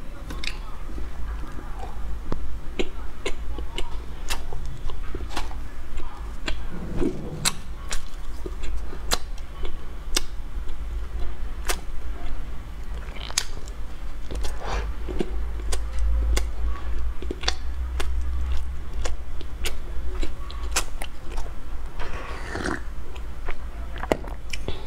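A person biting and chewing a whole-wheat bread roll topped with sliced almonds. Sharp little clicks come at irregular moments through the chewing, over a steady low hum.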